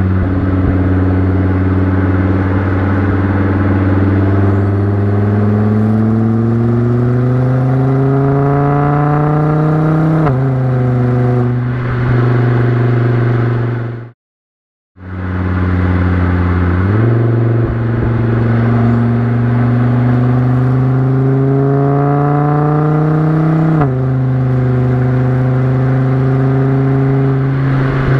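Volvo S60R's turbocharged inline-five on a catless 3-inch straight-pipe exhaust with a Borla XR-1 muffler, heard from the back of the car while it accelerates: the exhaust note climbs in pitch through a gear and drops sharply at an upshift about ten seconds in. After a brief break in the middle, it shifts again, climbs through another gear, and shifts once more near the end, settling to a steady cruise.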